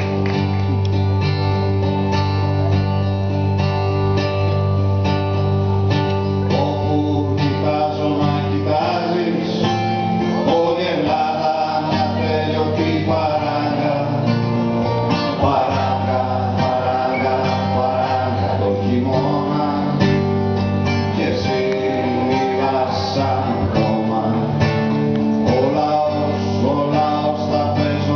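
Live music: a small plucked string instrument played steadily, with a man's voice singing over it from about nine seconds in.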